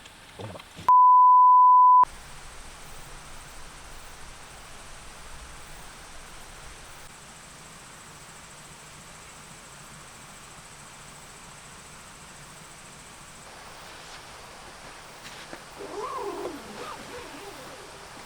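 A loud, steady electronic beep about a second long, dropped into silence as an edited-in bleep. It is followed by a quiet, steady background hiss, with a short wavering call near the end.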